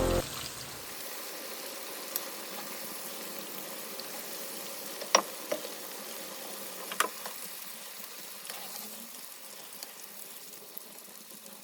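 Butternut squash pieces frying in hot oil in a pan: a steady sizzle with a few sharp pops and spits, about two, five and seven seconds in.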